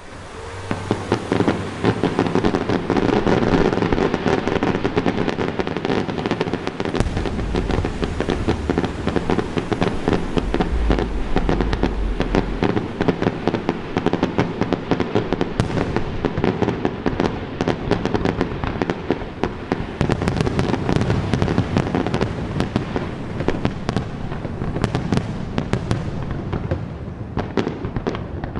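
Aerial fireworks in a dense, continuous barrage: a rapid stream of overlapping bangs and crackles, with deep booms in the middle.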